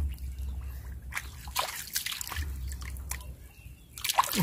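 Shallow muddy water sloshing and dripping as a freshwater mussel is swished and rinsed in it by hand, with a few short splashes about a second in and again near the end.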